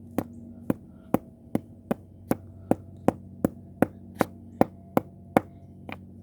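A rock pounding a small plastic light-up squishy toy against concrete: about fifteen sharp knocks in a steady rhythm, roughly two and a half a second, the last one weaker, over a faint steady hum.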